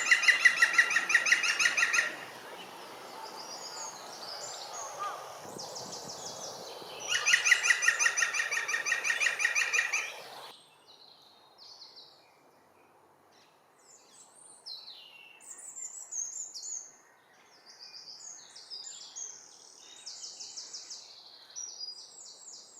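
Green woodpecker giving its yaffle call twice, each a loud rapid run of repeated notes lasting two to three seconds. After a sudden cut about ten seconds in, only fainter, higher chirps of other small birds are heard.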